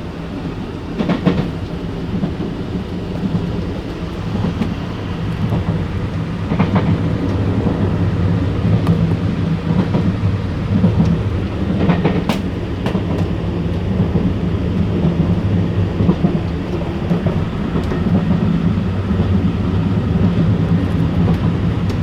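EMU900 electric multiple unit running, heard from the gangway connection between cars: a steady low rumble of wheels and car body with rattling. A few sharp clacks come through, about a second in, near 7 seconds and near 12 seconds.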